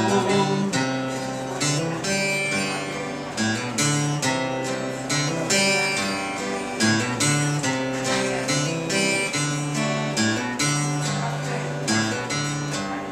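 Acoustic guitar playing alone in an instrumental break: plucked and strummed chords over a moving bass line, with no singing.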